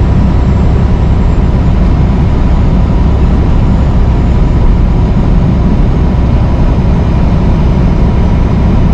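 Steady low rumble of a Freightliner semi truck cruising at highway speed: engine drone and tyre and road noise heard from inside the cab.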